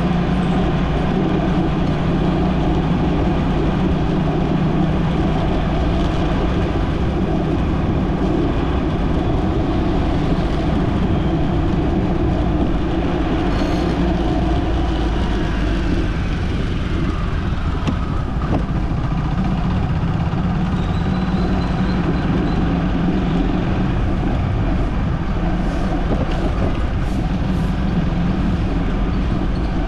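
Steady engine and road noise from a moving vehicle, a continuous low hum with a hiss of tyres and air above it.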